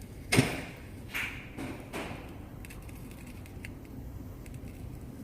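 A few faint, short handling noises from tools and parts on the workbench, the loudest about half a second in, with two weaker ones around one and two seconds in.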